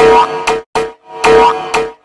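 Loud electronic standby music looping about once a second, each cycle a twangy pitched note with a sharp tick near its end, played while an emergency-alert screen asks viewers to wait.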